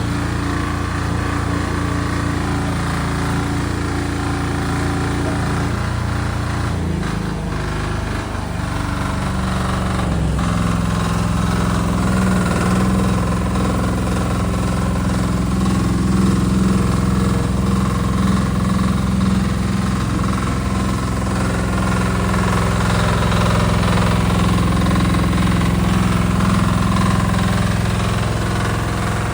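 JPC KV12 excavator's engine running. Between about seven and ten seconds in its pitch rises as it speeds up, and it then holds steady at the higher speed.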